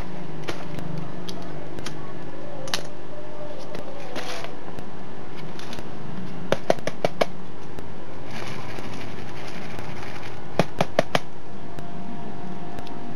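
Steady hum of a small electric air pump feeding a homemade vapour-fuel torch, broken by sharp clicks: four about halfway through and three more near the end.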